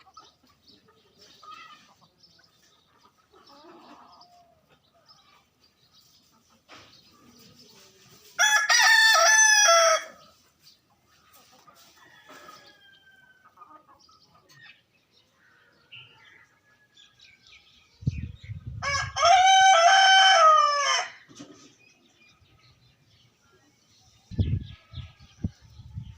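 Rooster crowing twice, two loud drawn-out cock-a-doodle-doos about ten seconds apart, with faint softer calls in between. Low rumbling noise comes just before the second crow and again near the end.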